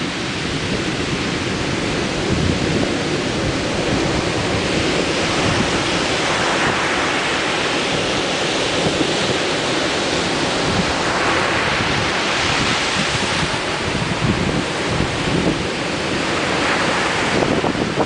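Ocean surf breaking on the shore: a continuous wash of waves that swells every four to five seconds, with wind buffeting the microphone.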